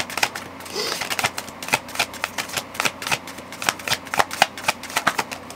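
A deck of tarot cards being shuffled by hand: a quick, uneven run of card clicks that goes on without a break.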